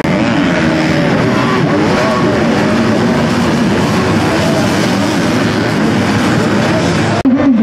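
Several 250 cc motocross bike engines revving on the track, their pitches rising and falling and overlapping. About seven seconds in the sound drops out for a moment, and a single louder engine comes in, revving up and down.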